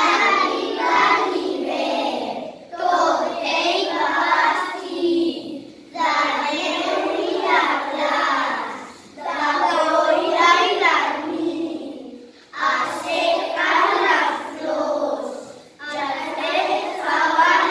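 A group of young children chanting a poem about winter together in Catalan, in sing-song unison, in phrases of about three seconds with short breaks between them.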